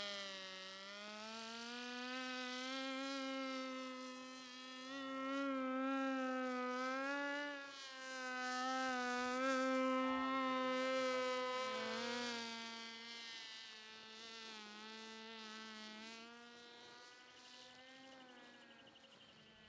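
Propeller motor of a small flying-wing UAV buzzing in flight, its pitch wavering as it manoeuvres. The pitch drops a little about twelve seconds in, and the buzz grows fainter toward the end as the plane flies off.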